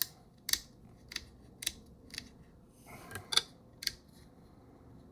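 A series of about eight sharp, small mechanical clicks, roughly one every half second, with a short pause in the middle; the loudest comes a little past the halfway point.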